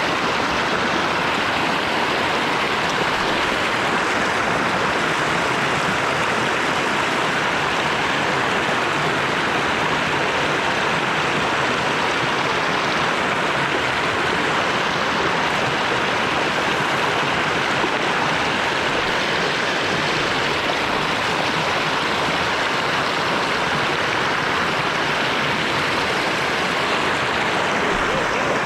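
Creek water rushing steadily: a loud, even wash of noise with no change.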